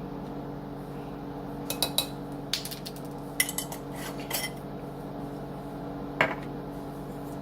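Scattered light clinks and taps of a metal spoon against a mixing bowl and container, a few separate strikes with pauses between, as a teaspoon of garlic powder is measured out and added. A steady low hum runs underneath.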